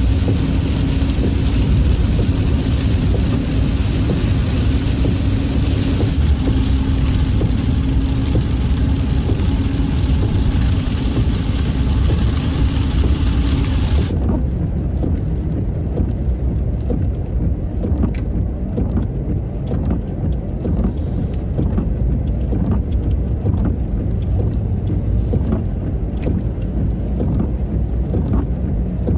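Chevy Express van driving in the rain: a steady low engine and road rumble with a drone and the hiss of rain and wet tyres. About halfway through the hiss stops abruptly, leaving the low rumble with faint clicks.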